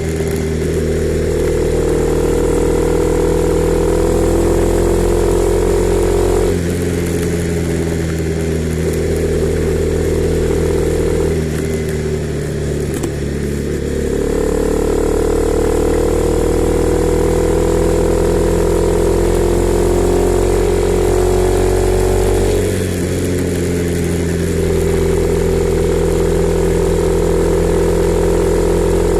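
Honda CB300R's single-cylinder engine running under way. Its note climbs slowly in pitch and drops back sharply three times, like shifting up through the gears.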